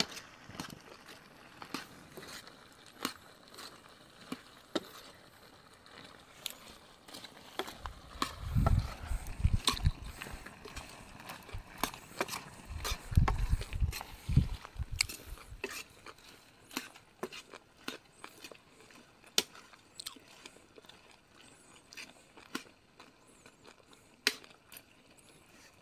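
Chicken curry cooking in an iron kadai over an open wood fire: scattered sharp crackles and ticks from the fire and the pan, with a steel ladle stirring. There are two clusters of dull low thumps, the loudest sounds, about a third of the way in and again around halfway.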